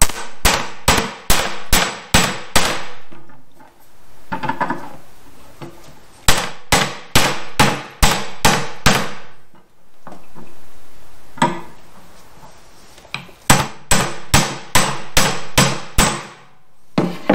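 Hammer striking a socket to drive a new rubber bushing into a 1969 Chevy Nova upper control arm. Sharp metallic blows with a brief ring come in runs of several, about three a second, with short pauses between runs.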